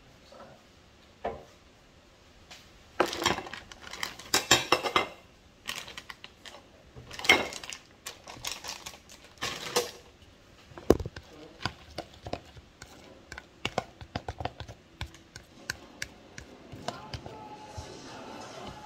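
Dishes and kitchen utensils clattering and knocking as they are handled, with one sharp knock about eleven seconds in, followed by a run of small, light clicks.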